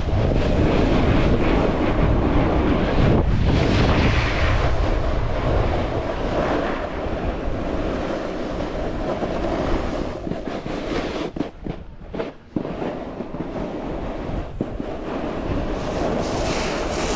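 Wind buffeting an action camera's microphone: a steady rushing hiss with a heavy low rumble for the first few seconds, easing after that and dropping away briefly about twelve seconds in.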